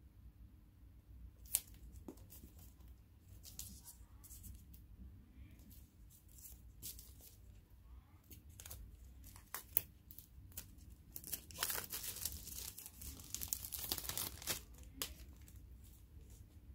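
Packaging being handled, crinkling and tearing, with scattered sharp clicks and taps. It is busiest for about three seconds near the end.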